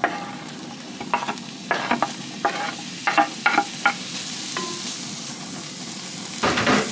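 Diced bacon (Speck) sizzling as it starts to fry in a hot cast-iron pan, with a steady hiss of frying. A wooden spoon scrapes the bacon off a wooden board into the pan and stirs it, giving a string of knocks and scrapes over the first four seconds or so and another near the end.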